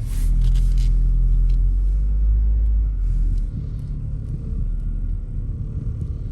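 Deep rumbling drone inside the cabin of a moving Lexus GS300, heaviest for about the first three seconds and easing off about three and a half seconds in. The driver takes it for worn front wheel bearings, though he is not certain.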